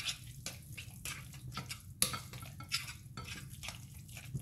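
Fork stirring a thick, wet herb marinade in a glass bowl: irregular clicks and scrapes of the fork against the glass, with a sharper knock about two seconds in.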